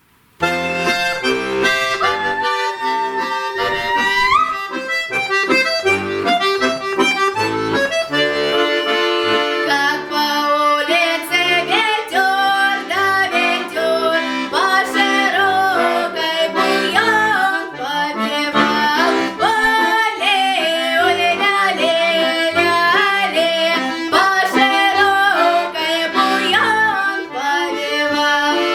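Instrumental music: the opening of a song, a reed-toned melody over bass notes in a steady beat. It starts about half a second in.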